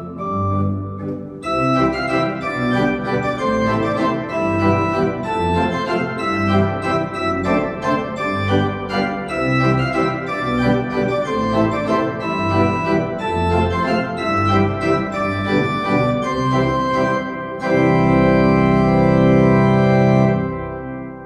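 Church organ playing a moving passage over a pulsing pedal bass, the sound growing fuller and brighter about a second and a half in. Near the end it holds one loud full chord, then releases, and the sound dies away in the church's reverberation.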